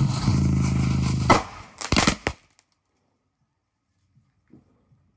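Small box speaker overdriven with bass-heavy music while smoking; about a second in it gives a sharp pop, sputters with a few crackles, then falls silent as the driver burns out.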